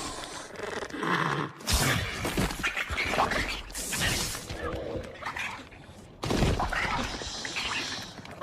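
Designed dinosaur sound effects for Austroraptor: harsh, rough animal calls. A short call comes about a second in, then a long one lasting several seconds, then another that starts suddenly near the middle and fades out near the end.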